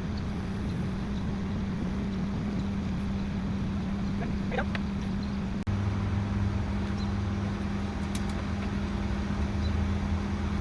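Heavy equipment engine running steadily with a low, even hum. About halfway it changes abruptly and a deeper hum joins in.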